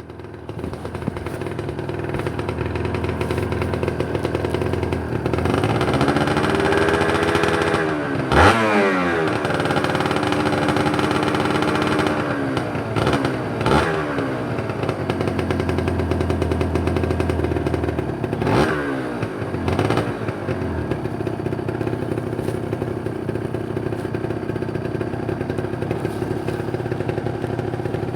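Kawasaki Ninja 150 RR's two-stroke single-cylinder engine revving up under throttle. Its pitch climbs, then drops sharply several times. After these drops it settles into a steady run.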